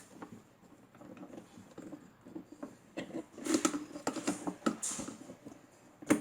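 Small fan motor parts being handled on a workbench: irregular clicks, light rattling and scraping, busiest in the middle, with one sharp click just before the end.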